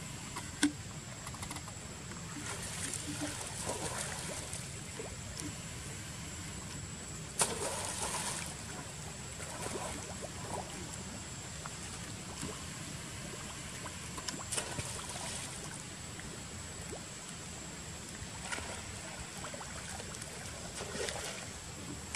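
Water splashing and sloshing in short bursts as macaques swim and paddle against a stone pond edge, over a steady low rumble and a thin, steady high tone.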